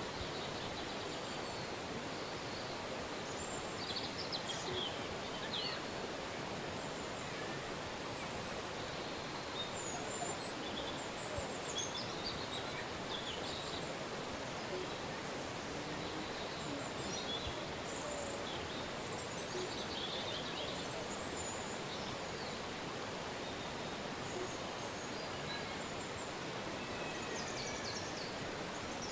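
Steady rush of a flowing river, with birds chirping and trilling over it in scattered short bursts.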